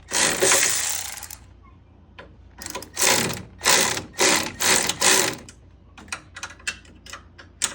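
Socket ratchet tightening a 7/16 bolt, its pawl clicking in a series of strokes about half a second apart, then in short quick clicks near the end. A louder noisy burst opens it.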